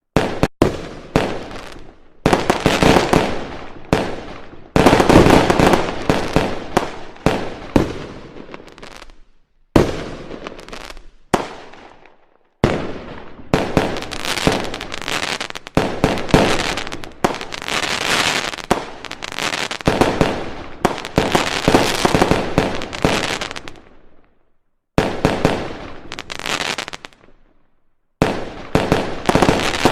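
Fireworks going off: volleys of sharp bangs and crackles that each die away, broken by a few brief quiet gaps.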